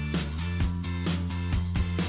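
Background music with a steady beat of about four beats a second over sustained bass notes.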